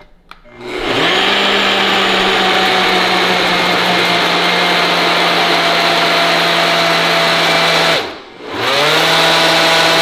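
NutriBullet blender motor blending a fruit and protein smoothie: a few small clicks, then the motor spins up and runs steadily and loud, stops briefly about eight seconds in, and spins up again.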